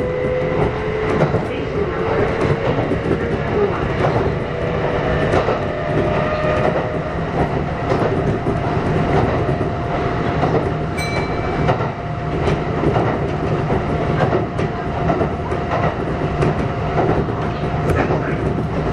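Kintetsu 1249 series electric train heard from on board while running: its Hitachi GTO-thyristor VVVF traction drive gives a steady whine over the rumble of the car, with scattered rail-joint clicks.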